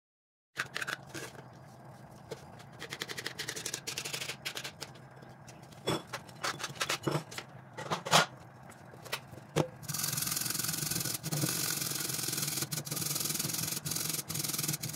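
Handling clatter and a few sharp knocks of kitchen utensils being set down, then, from about ten seconds in, a steady rasping as a carrot is grated on a stainless-steel standing grater in a glass bowl.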